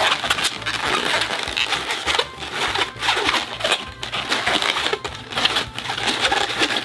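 Latex 260 modelling balloon rubbing and squeaking against the hands and itself as it is folded and twisted into a loop petal, in a continuous run of short scraping bursts.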